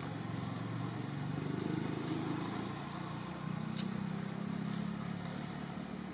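A motor vehicle's engine running, a low steady hum that swells twice, with a single sharp click about four seconds in.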